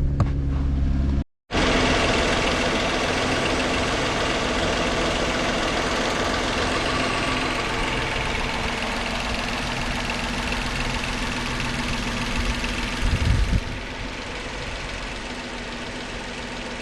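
Ford Mustang car engine idling steadily, with a short low swell about thirteen seconds in. The sound drops out briefly about a second in, then settles slightly quieter after the swell.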